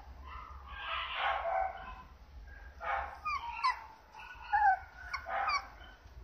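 Toy poodle puppy giving a series of short, high-pitched yips and whimpers, some sliding up or down in pitch, with brief noisier bursts in between.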